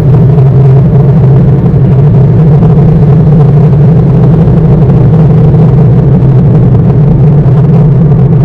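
Loud, steady low rumble of an electric commuter train running, with no break or change.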